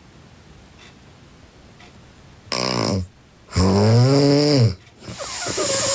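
A girl snoring loudly: after a quiet start, a short snort about halfway in, then a long pitched snore that rises and falls, and another starting near the end.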